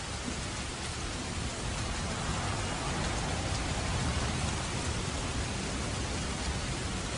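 Steady rain falling: a continuous even hiss of many drops over a low rumble, swelling a little in the middle.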